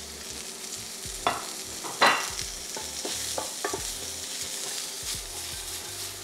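Baby corn and carrot sticks sizzling in hot oil in a frying pan, with a wooden spoon knocking and scraping against the pan. The two loudest knocks come a little over a second and about two seconds in, followed by a few lighter clicks.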